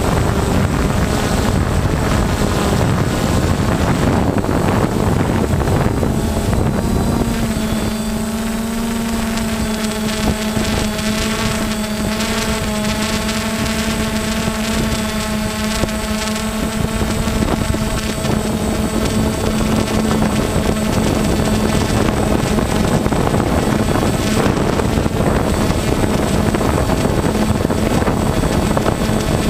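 DJI Phantom FC40 quadcopter's electric motors and propellers running in flight, heard from the GoPro mounted on it. A steady propeller hum rides over rushing noise, and the hum holds an even pitch from about a quarter of the way in.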